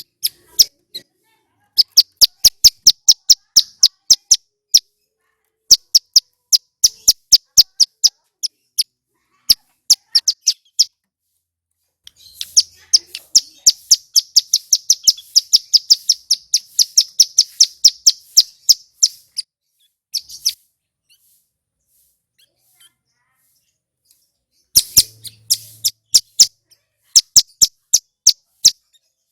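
Male ciblek gunung (a mountain prinia) singing loud, clear song: bursts of rapid, sharp, high notes, several a second. A long, dense run in the middle gives way to a few seconds' pause before the song resumes near the end.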